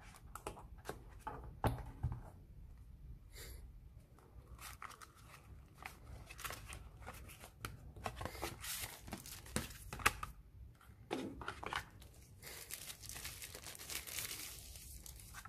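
Hands opening a cardboard smartphone box and handling its inner cardboard pieces, with small taps and scrapes. Later the plastic bag around the phone's soft case crinkles and rustles as it is handled.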